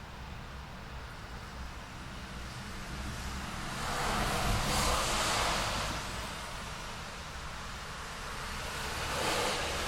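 City street traffic: a steady low rumble, with one car passing about halfway through, its tyre and engine noise swelling and fading, and a second vehicle passing near the end.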